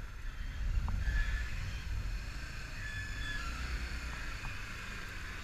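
Sport motorcycle riding slowly, its engine and road noise a low, steady rumble, with a few faint, short, high squeals over it.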